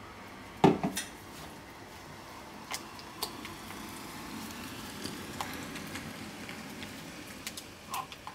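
A utensil stirring and scraping soap batter in a container. There is a sharp knock against the container under a second in, then two lighter ones, then soft scraping with scattered clicks.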